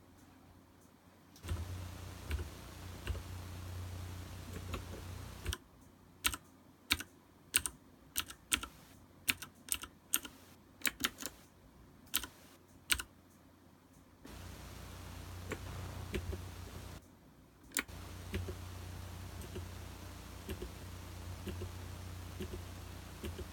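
Typing on a MantisTek GK3-61 mechanical keyboard with Cherry switches: keys clicking, with a run of separate, sharper keystrokes in the middle and quieter, denser typing over a low hum before and after.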